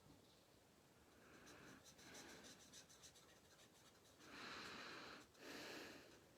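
Faint scratching of a Stampin' Blends alcohol marker being rubbed over cardstock to colour in a stamped heart. There are a few short soft strokes, then two longer, louder strokes near the end.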